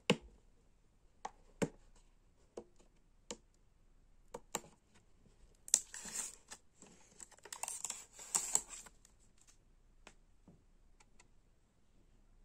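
Hard plastic clicking and knocking as the auto-darkening filter cartridge is worked loose in its plastic holder inside a welding helmet, followed by a few seconds of plastic scraping and rustling as the cartridge is slid out.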